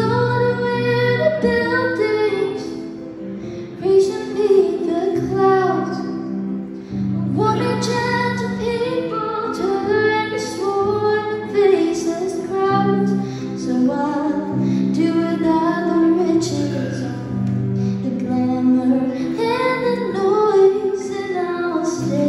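A young woman singing a slow folk ballad, accompanied by her own acoustic guitar.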